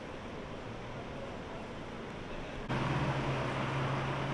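Street ambience: a steady hiss of distant traffic that steps up suddenly about two-thirds of the way in, where a steady low hum joins it.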